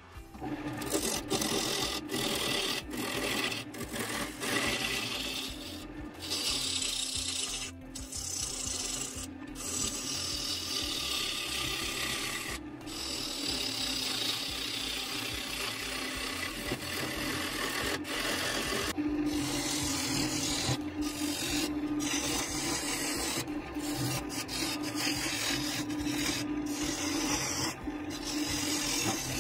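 Woodturning gouge cutting a spinning wooden bowl blank on a lathe: a continuous rough, rasping hiss of wood being shaved, broken by several brief gaps as the tool lifts off, over the steady hum of the lathe.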